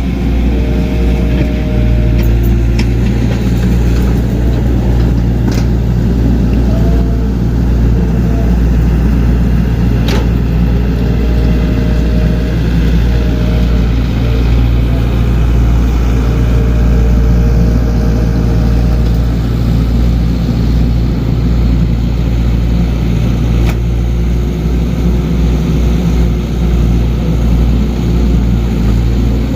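Diesel engine of a heavy earthmoving machine running steadily under work, with short held tones coming and going over the rumble and a few brief knocks.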